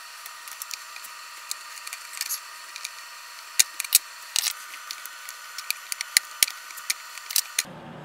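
Irregular small clicks and taps from hands working the coffee maker's plastic parts and wire connectors, over a steady hiss; the sharpest clicks come a little past halfway.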